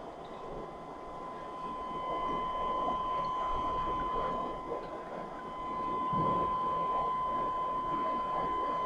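Aquarium filtration running: water bubbling and churning from an air-driven sponge filter, under a steady high-pitched whine.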